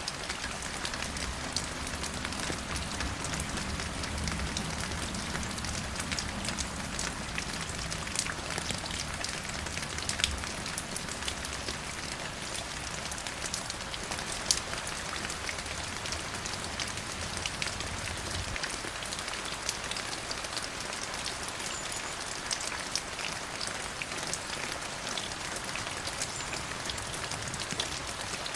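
Steady rain falling and pattering on a surface: a dense hiss full of individual drop ticks, with a few louder drops. A low rumble underneath stops abruptly about two-thirds of the way through.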